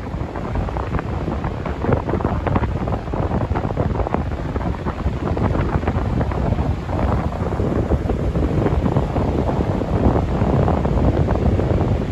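Strong wind buffeting the microphone: a loud, low rushing noise that rises and falls with the gusts.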